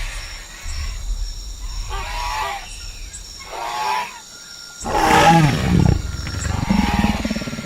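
Animal calls: a few short pitched cries, then a loud, low call falling in pitch about five seconds in, over a steady low rumble.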